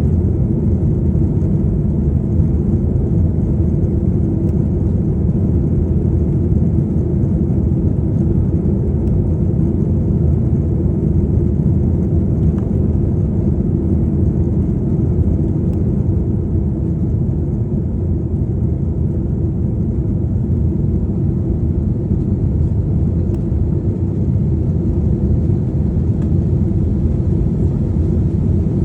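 Steady low rumble of an airliner's engines and rushing air, heard from inside the passenger cabin during take-off.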